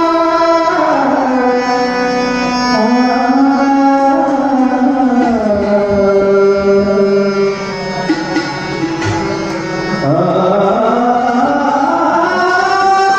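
Devotional abhang music: a harmonium playing sustained melodic phrases together with a man's long, gliding sung notes and a hand drum.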